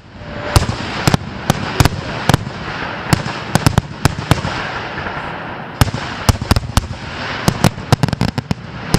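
Fireworks going off in a rapid barrage: many sharp bangs, roughly three a second at uneven intervals, over a steady hiss.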